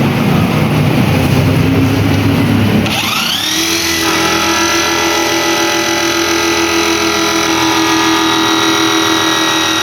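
Washing machine motor running with a rough, rattling rumble; about three seconds in a whine rises quickly and settles into a steady, high-pitched hum as the motor runs up to speed.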